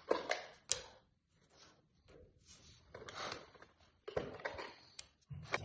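Light handling sounds: a few short taps and knocks of a hard-wax repair block being handled and set down on a parquet floor, with some rubbing in between.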